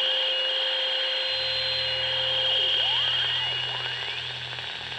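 Radio static with whistling tones that slide up and down and steady held tones, the sound of a shortwave receiver being tuned, joined about a second in by a low steady hum.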